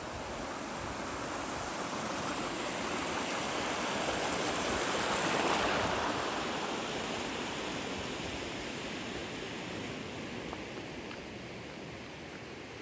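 Water from a spring running in a shallow stony channel, a steady rushing that grows louder towards the middle and then fades again.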